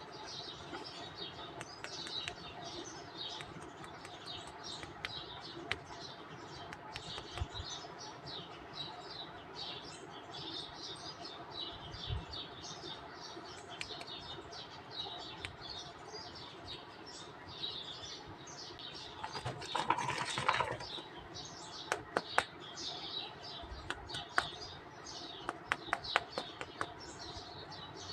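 Small birds chirping busily and without a break. About two-thirds of the way through comes a short burst of rustling, and near the end a run of sharp clicks, typical of plastic packaging and figures being handled.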